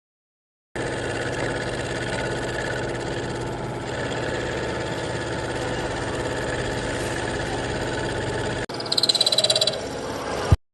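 Machine tool running with a steady hum. After an abrupt cut near the end comes a louder, higher-pitched passage that pulses rapidly for under a second, then the sound stops suddenly.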